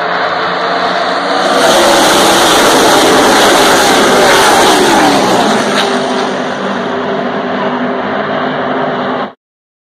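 A pack of NASCAR Cup stock cars with V8 engines passing at racing speed, the engine pitches sliding downward as the cars go by. The sound swells about a second and a half in, eases after about six seconds, and cuts off abruptly near the end.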